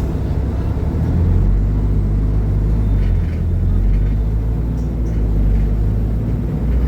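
Engine of a Mercedes-Benz O500UDA super-articulated bus running with a steady low drone, getting louder about a second in.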